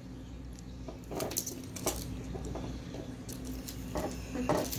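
Scattered light clicks and taps of small metal fishing tackle and pliers being handled on a wooden tabletop, a handful of separate clicks over a faint steady hum.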